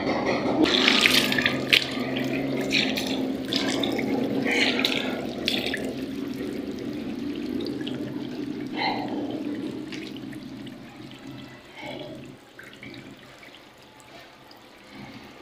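Water running from a tap into a sink, with splashing as a face is washed; it grows quieter through the second half.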